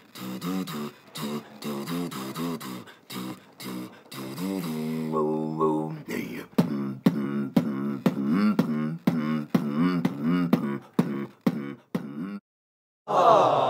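Vocal beatboxing: a steady beat of mouth-made kick and snare sounds with a hummed bass line under it, and a held, wavering hum about halfway through. The beat stops about twelve seconds in, and a loud voiced sound starts just before the end.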